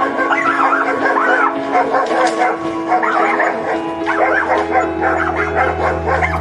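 Dogs giving many short calls in quick succession over background music with held notes.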